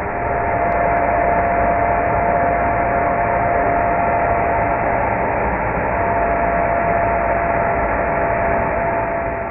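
Metal lathe running during a milling job: steady machine noise with a constant whine, fading out near the end.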